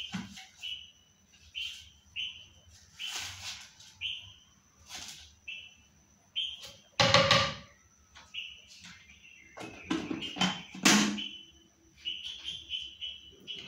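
Clinks and knocks of a spoon against a blender jar and of containers and a bottle cap being handled, the loudest about seven and eleven seconds in, over a small bird chirping, short high chirps about every half second.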